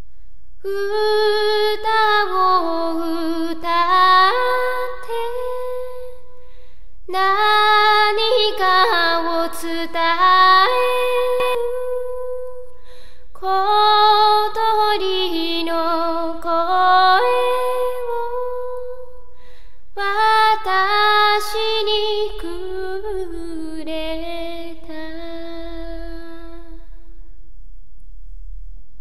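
A woman singing alone, without instruments, in four long phrases with short pauses between.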